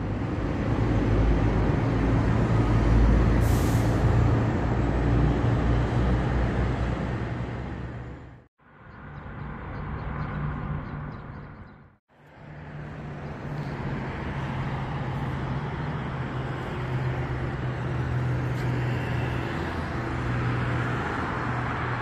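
Busy road traffic close by: cars and heavy vehicles driving past with a steady low engine hum under the noise of the tyres. The sound drops out briefly twice, about eight and twelve seconds in.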